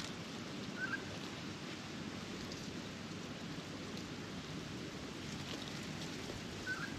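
Steady outdoor background hiss with two short bird chirps, one about a second in and one near the end.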